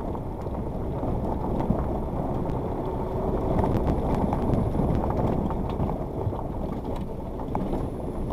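Suzuki Jimny driving slowly over a rough gravel riverbed track, heard from inside the cabin: a steady low rumble of engine and tyres with light scattered ticks.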